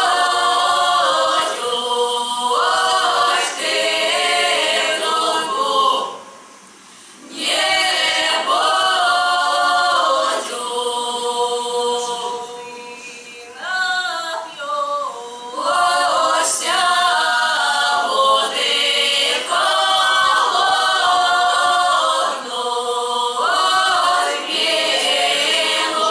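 Russian folk song ensemble of women's voices with one man singing a cappella, in sung phrases with a short break about six seconds in and another dip near the middle.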